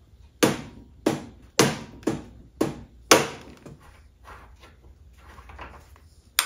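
Six heavy metal knocks about half a second apart, each ringing briefly, as the chrome front-fork leg of a Triumph Bonneville is jarred by hand, then a single sharp click near the end.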